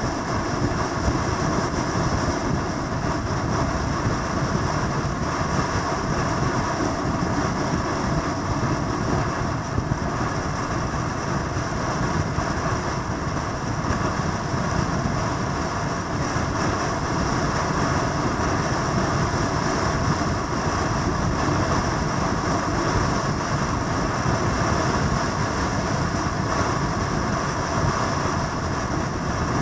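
Motorcycle engine running in a steady, unbroken drone, mixed with a rushing noise.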